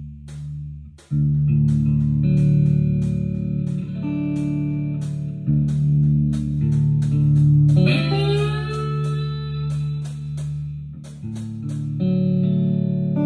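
Electric guitar playing sustained, ringing notes and chords that change every second or two, with a run of rising, bending notes about eight seconds in.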